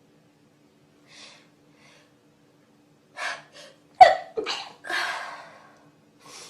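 Sneezing: a few soft breathy intakes, then a sudden loud explosive burst about four seconds in, followed by two more breathy bursts that fade away.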